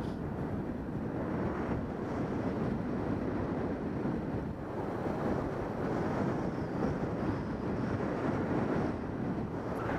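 Steady rushing wind noise on the microphone of a paraglider pilot's camera, from the airflow of flight.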